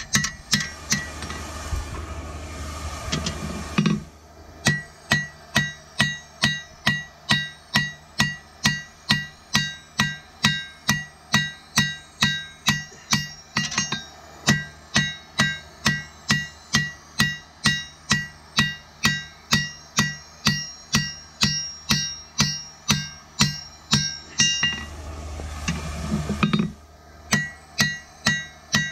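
Steel sword blade hammered by hand on an anvil while red-hot, in a steady rhythm of about two to three blows a second, each blow ringing with a bright metallic tone. The hammering stops twice, just after the start and near the end, for a few seconds of rushing noise.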